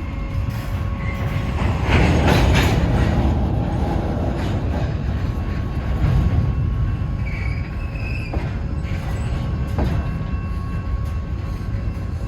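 Norfolk Southern freight cars rolling past with a steady low rumble of wheels on rail, getting louder about two seconds in. Brief wheel squeal partway through and a couple of sharp clicks from the wheels crossing rail joints.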